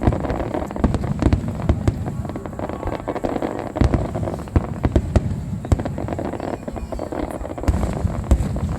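Fireworks display: a dense, irregular run of booming shell bursts and sharp bangs, several of them going off every second.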